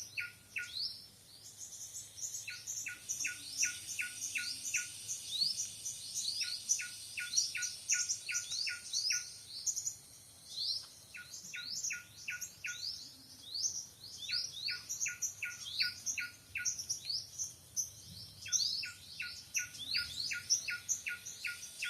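Wild birds chirping and singing. One bird repeats a quick run of six to eight short falling notes every few seconds, while others chirp higher and faster over a steady high hiss.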